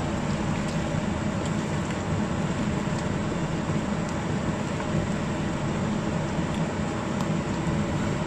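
A steady hum, with a pot of tomato and zucchini sauce simmering on the stove while a wooden spatula stirs it, tapping the stainless-steel pot faintly a few times.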